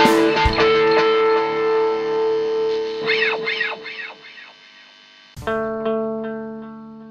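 Background music on distorted electric guitar: a held chord rings and dies away, nearly silent for a moment, then a new chord is struck about five seconds in and left to ring.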